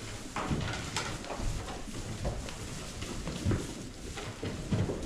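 Goats and sheep moving about at their grain in a barn: hooves shuffling and clattering, with irregular knocks against wood.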